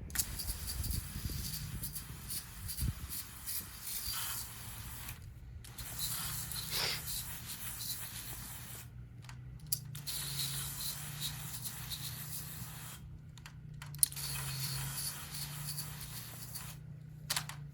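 Screen wash being sprayed onto window screens in spurts, a hiss that stops and starts several times, with a low steady hum joining in about six seconds in.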